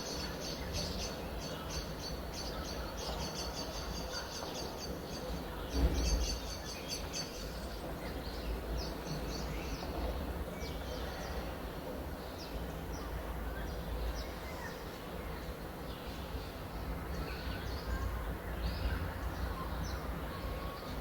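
Small birds chirping: a quick run of repeated high chirps, about three a second, for the first several seconds, then scattered calls, over a steady low outdoor rumble. A short thump about six seconds in is the loudest sound.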